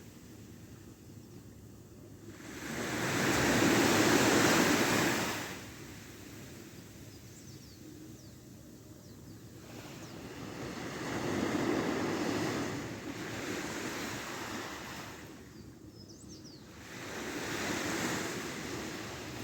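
Ocean surf on a beach: waves breaking and washing up in several surges that rise and fall every few seconds, the loudest a few seconds in.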